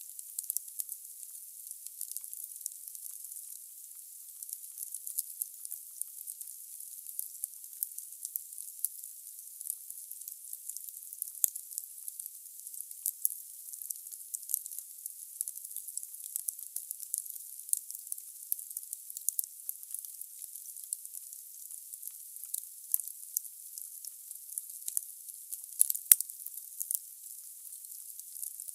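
Wood logs burning in a fireplace, crackling and hissing: a steady high hiss dotted with many small pops, and one louder pop about 26 seconds in.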